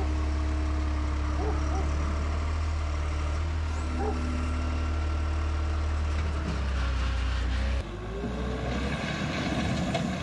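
Diesel engine of a compact earthmoving machine running steadily. About eight seconds in the sound changes abruptly to a rougher, more uneven machine sound.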